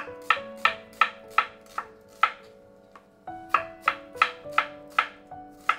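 Chef's knife slicing an onion on a cutting board, each cut ending in a sharp tap on the board at about three a second, with a pause of about a second halfway through.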